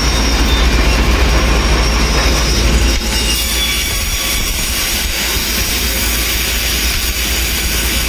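Sawmill running: a loud, steady mechanical noise over a low hum, a little quieter from about three seconds in.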